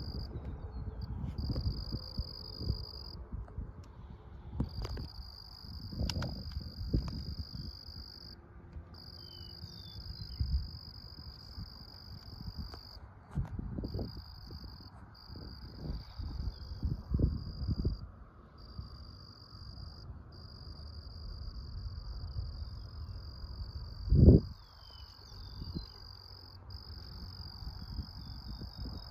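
Insects trilling steadily in one high band, broken by short gaps every few seconds, over low wind rumble on the microphone with scattered knocks; a single loud thump about 24 seconds in.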